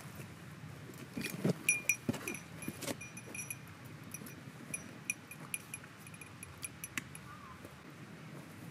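Small metal fittings jingling and clinking as camping gear is handled, with a few light knocks. The clinks come thick at first, thin out, and stop about seven seconds in.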